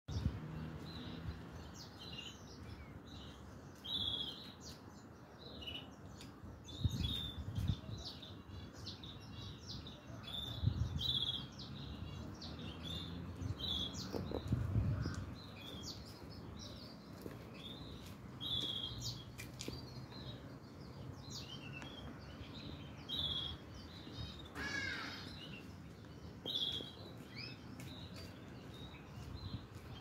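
Yellow-fronted canary × domestic canary mule giving short high chirps every second or two, with one longer falling trill near the end. A low rumble swells a few times underneath.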